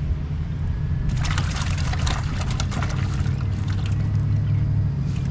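Water splashing and sloshing in a bucket as a small bullhead catfish thrashes in it, a dense flurry for about two seconds starting a second in, over a steady low rumble of wind on the microphone.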